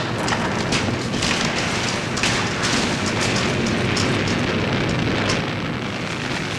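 Bricks and plaster debris falling and settling through a wrecked room: a dense crackling clatter of many small impacts.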